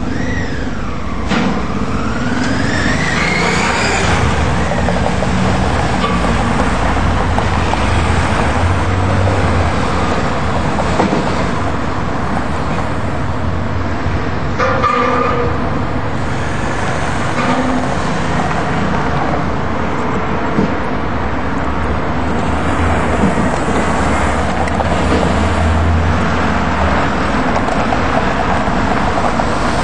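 Street traffic around a light-rail tram stop: bus and car engines running and vehicles passing in a steady din. A whine falls and then rises in the first few seconds, and a short horn toot sounds about halfway through.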